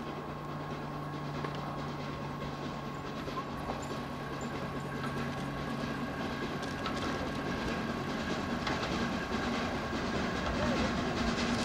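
LNER A4 Pacific steam locomotive approaching with its train. The running noise of the engine and the coaches' wheels on the rails grows steadily louder as it nears.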